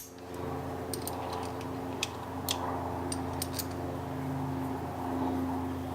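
A handful of short, sharp metal clicks from hand tools at a bolt being tightened into a battery-tray mount, spread over a few seconds, with a steady hum behind them.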